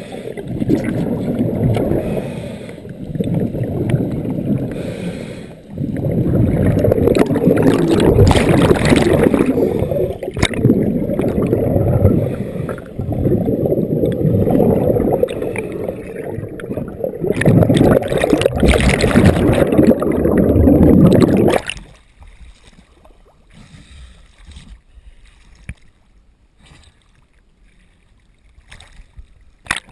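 Scuba regulator exhaust bubbles rushing past the camera underwater, loud, in long surges a few seconds apart as the diver breathes out. They cut off suddenly about 22 seconds in, leaving only faint sound.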